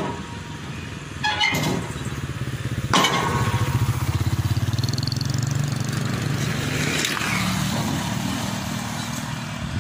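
A small motorcycle engine running as it rides close past, a fast-pulsing note that is loudest a few seconds in. Before it, a couple of sharp knocks, as from the steel loading ramps being set against the truck bed.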